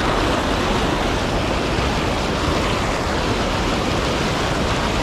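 Steady rush of fast, shallow river water churning around rocks and legs.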